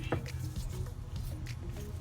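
Background music with a steady low bass line and short held notes, a few faint clicks underneath.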